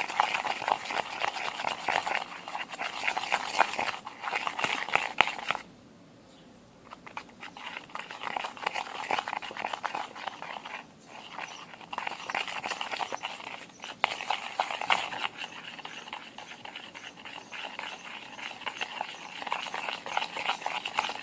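A sticky PVA-glue slime mixture, activated with borax, being stirred: dense, fast, wet clicking and squelching, with a pause of about a second roughly a quarter of the way in.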